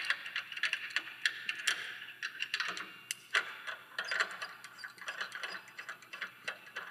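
Steel carabiners and anchor chain clinking as a climber unclips her personal protection leash from a wall anchor before rappelling: a run of irregular, light metallic clicks.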